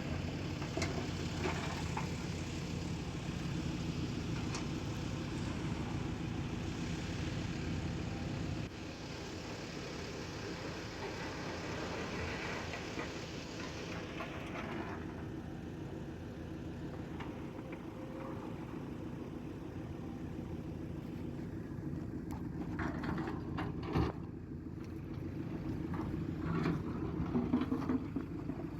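Diesel engine of an earthmoving machine running steadily under working load. The engine sound changes abruptly about nine seconds in, a single sharp knock comes about 24 seconds in, and there is some clattering near the end.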